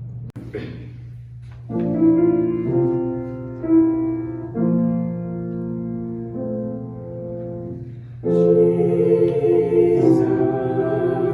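Keyboard introduction to a worship song: held chords changing every second or two, over a steady low hum. Near the end a voice comes in singing the first word, 'Jesus'.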